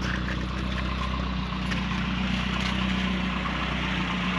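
RC car's electric motor running steadily with a low hum. It is being run until it blows and sounds like it's going.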